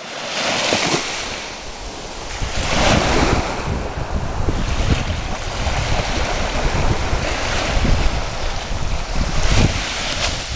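Sea surf washing onto a beach, the rush of the waves swelling and falling back every two to three seconds.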